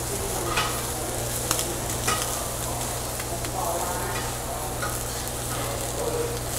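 Lamb chops sizzling on a tabletop barbecue grill plate, a steady frying hiss with a few light clicks, over a constant low hum.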